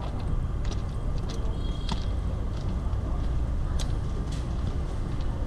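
Urban street ambience: a steady low rumble with scattered sharp clicks and faint voices.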